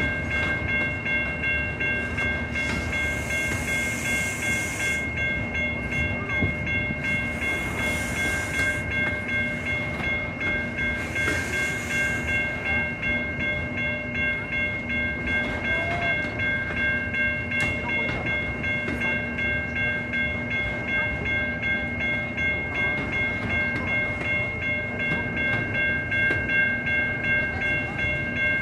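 Freight train of autorack cars rolling slowly past, its wheels rumbling and clacking steadily, with a continuous high ringing of several steady tones over it. A few brief high hisses come in the first half.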